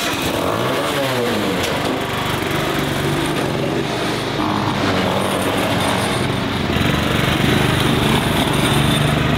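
Small garden-tractor engines running steadily as a John Deere 240 lawn tractor and a kids' mini tractor drive off, with a brief rise and fall in engine pitch about a second in.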